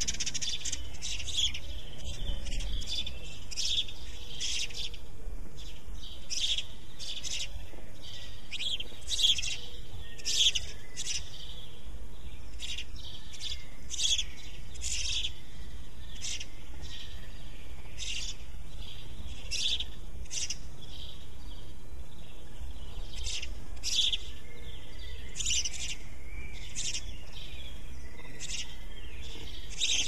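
House sparrows chirping: short, sharp chirps repeated irregularly, about one or two a second, over a steady low rumble.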